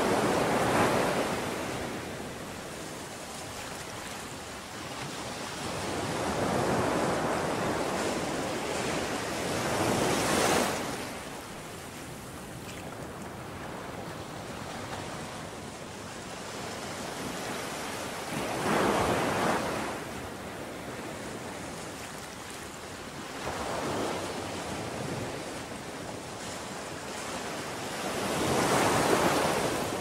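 Sea waves breaking on a beach: about five swells of surf rise and fall over the stretch, with a steady wash between them.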